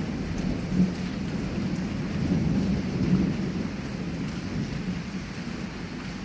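Heavy rain with a low, rolling thunder rumble that swells about a second in and again around three seconds, then eases off.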